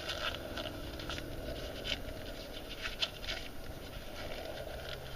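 A tight glove being stretched and worked onto a hand: scattered small crackles and snaps, with a couple of sharper ticks.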